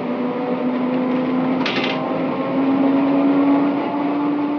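Electric tram's traction motors whining as the tram picks up speed, the pitch rising slowly and steadily over a running rattle, with a short clatter about two seconds in.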